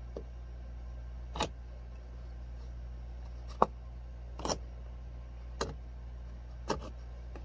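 Hammer striking a small nail into a thin wooden birdhouse panel: five separate, uneven strikes about a second apart, over a steady low hum.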